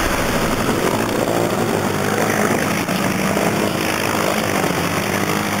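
ATV engines running steadily, a continuous engine drone over broad noise.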